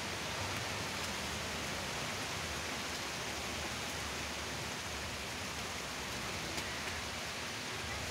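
Steady rain falling on a fishing pond's water surface, an even hiss.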